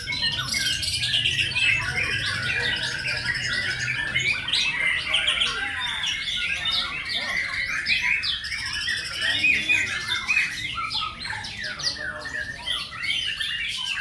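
Many caged white-rumped shamas singing at once, a dense overlapping mix of whistled phrases, trills and rapid chattering notes with no break.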